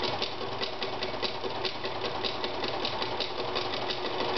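Veritas 8016/22 electric sewing machine running steadily while stitching through four layers of upholstery fabric. Its motor hums at an even pitch under rapid, regular clicking from the needle and shuttle mechanism.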